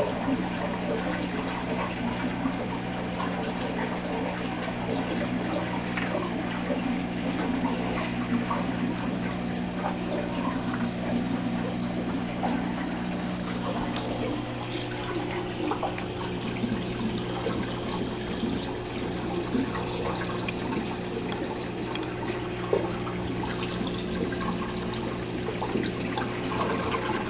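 Saltwater aquarium's water circulation running: steady trickling and bubbling water over a constant low hum.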